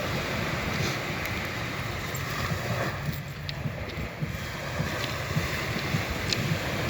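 Wind buffeting the microphone over a steady rushing noise, with a few faint ticks.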